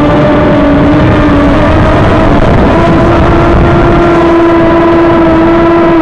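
Mini quadcopter's small electric motors and propellers whining loudly, heard close up through the onboard camera's microphone. The pitch steps up slightly about two and a half seconds in.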